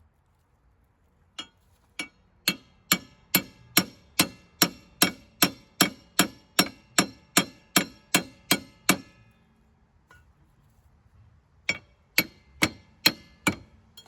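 Hammer blows on metal, each strike ringing briefly: a steady run of about eighteen blows, about two and a half a second, then a pause, and a quicker burst of five blows near the end.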